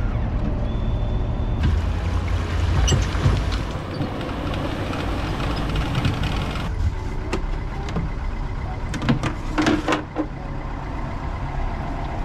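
A tow vehicle's engine running as the empty boat trailer is pulled up the launch ramp, with a rougher hiss over it for a few seconds. After a cut comes a steadier low engine hum, with several sharp clicks and knocks about nine to ten seconds in.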